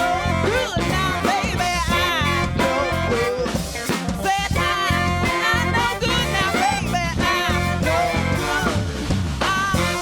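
A live band playing a song, with a steady bass and drum groove under a lead line whose notes bend and glide in pitch.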